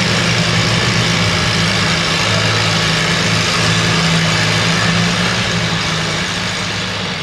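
Antique pulling tractor's engine idling steadily with a low, even hum while it waits at the start line, easing off a little near the end.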